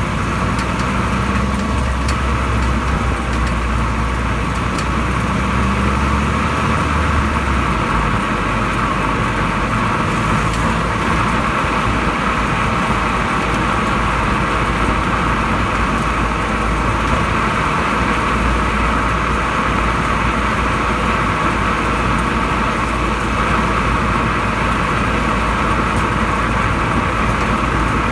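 Ford Focus Mk2.5 on the move: steady road and running noise picked up at the rear suspension, which rattles. The owner suspects a rear coil spring whose rubber protection has shifted, so that metal touches metal.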